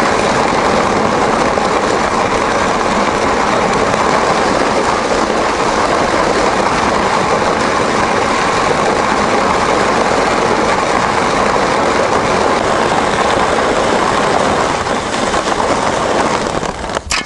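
Plastic ice-fishing sled dragged over ice and crusted snow, its bottom scraping steadily right under the microphone. The scraping stops just before the end.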